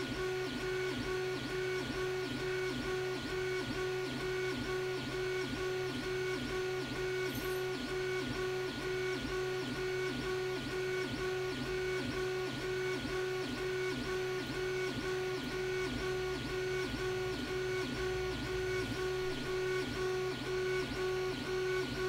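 Creality 3D printer's bed stepper motor whining steadily as it drives the bed back and forth, with a repeating dip about twice a second as the bed reverses. The bed is oscillating close to the resonant frequency of the pendulum standing on it.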